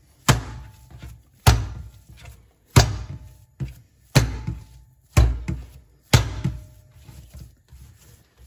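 Soft, buttery bun dough being lifted and slapped down hard on the worktable: six heavy slaps about a second apart, then quieter handling near the end. The dough is being beaten to work it and change its texture.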